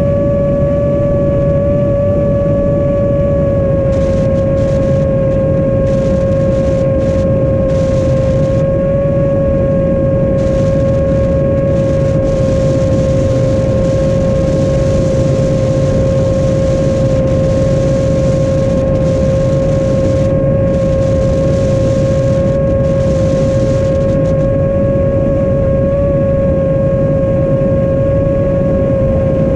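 Chimera 7 long-range quadcopter's brushless motors and 7-inch propellers in steady forward flight: a constant whine that dips slightly in pitch in the first second, then holds. Heavy wind noise beneath it on the onboard GoPro microphone.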